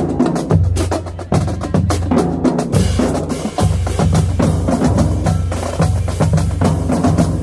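Marching drumline playing a fast, dense cadence: rapid snare strokes and rim clicks over pounding bass drums.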